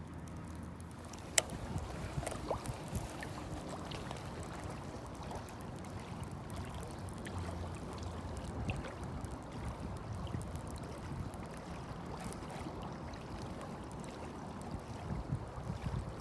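Water lapping against a fishing boat's hull with a steady low rush of wind and water, and small irregular ticks throughout. One sharp click about a second in.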